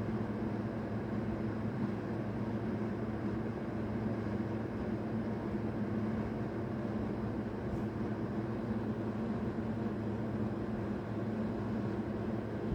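Air conditioner running with a steady hum and airy hiss.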